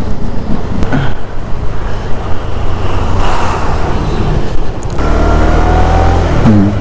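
KTM 390 Adventure single-cylinder motorcycle running on the road, with wind rushing over the microphone. The sound changes abruptly about five seconds in, to a steadier low rumble.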